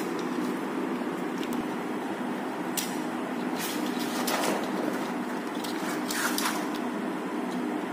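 A PVC floor sheet being lifted, folded back and slid over a concrete floor, with a few short scrapes and rustles, over a steady low hum.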